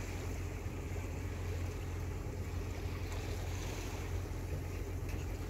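Steady wind noise buffeting the microphone over the wash of sea water along a sailing yacht's hull while under way.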